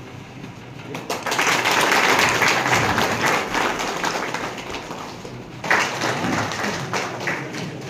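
A small group of people applauding, starting about a second in, strongest early and dying down, with a fresh burst of claps near the end.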